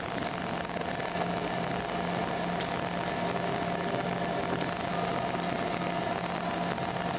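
Cabin noise of an Embraer ERJ-145 regional jet taxiing after landing: its two rear-mounted Rolls-Royce AE 3007 turbofans at low thrust give a steady hum with a low tone and a mid-pitched tone over an even rush of noise.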